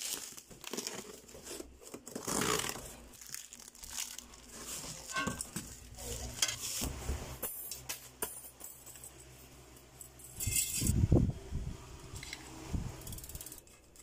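Cardboard box and bubble wrap being opened and handled: irregular crinkling and rustling with scattered knocks.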